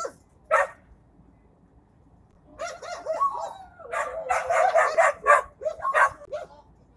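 Dog whining and yelping in high, wavering cries: one short cry near the start, then a run of them from about two and a half seconds in.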